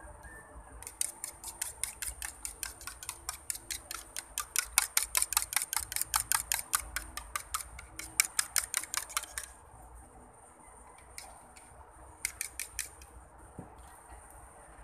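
Fork beating raw eggs in a ceramic bowl: a quick run of clinks against the bowl, about six a second for some eight seconds. A few shorter bursts of clinks follow near the end.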